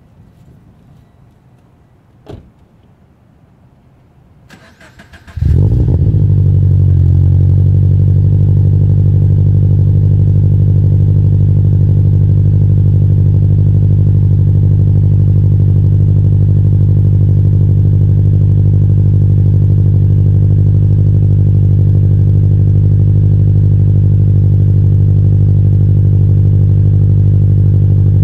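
Scion FR-S flat-four engine, fitted with a RevWorks unequal-length header and Invidia N1 exhaust, being started: about five seconds in the starter cranks briefly and the engine catches, its revs flaring and then settling within a couple of seconds into a steady, loud idle through the exhaust. The owner notes a slight leak at the flange where the header meets the over pipe.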